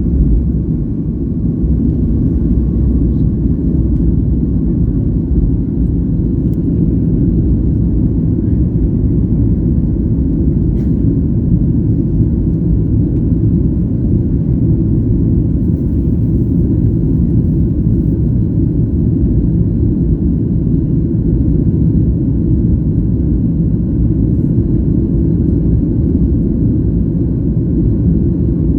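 Steady, loud, low rumble inside the cabin of a Boeing 737 MAX 8 as it takes off and climbs: its CFM LEAP-1B engines at high thrust and the rush of air along the fuselage.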